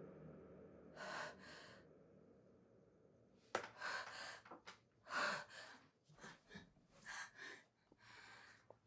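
A woman's frightened breathing, quiet: two breaths about a second in, then a sharp gasp and a run of quick, panicked breaths from about three and a half seconds in.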